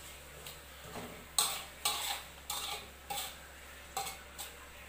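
Metal spatula scraping and clacking against a steel wok as spice paste is stir-fried. There are about six irregular strokes, beginning about a second and a half in.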